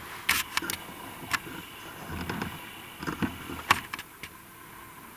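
Scattered sharp clicks and knocks, the loudest near the end, over a steady low hum.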